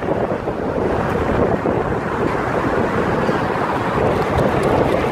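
Wind buffeting a phone's microphone held out of the window of a moving car, over the car's steady road noise.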